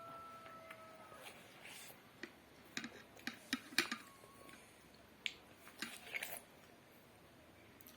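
Quiet eating sounds: a scattered run of light clicks and smacks, most of them between about two and six and a half seconds in.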